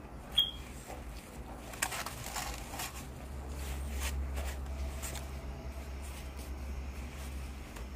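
Paper napkin rustling as it is wiped across the mouth and then folded in the hands, with a sharp click about half a second in and a low steady hum underneath.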